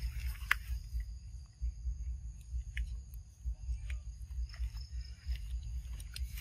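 Insects, crickets or cicadas, calling in a steady high-pitched chorus over a constant low rumble on the microphone, with a few faint scattered clicks.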